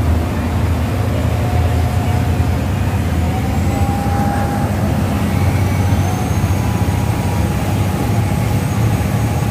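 Passenger boat's engine running steadily at cruising speed, heard as a loud, even drone inside the enclosed cabin. A faint whine on top edges slightly up in pitch a few seconds in.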